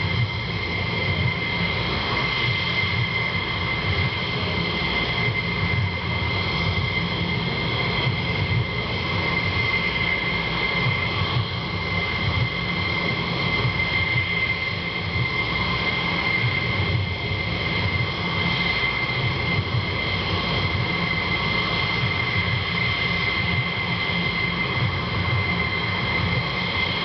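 Jet engines of a line of F-16 fighters idling on the ramp: a steady whine with several constant high tones over a low rumble.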